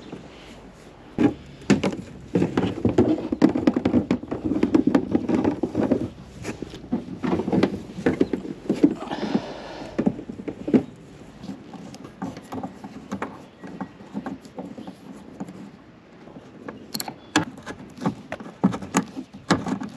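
Irregular knocks, clicks and scraping of hands working on plastic fittings, most likely a cable gland being fitted and tightened. The handling is busiest in the first several seconds, with scattered sharp clicks after that.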